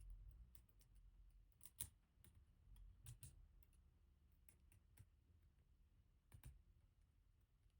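Faint, scattered small metallic clicks and taps of a tool working in a GEGE pExtra+ oval lock cylinder, as a stuck pin spring is worked out of its chamber.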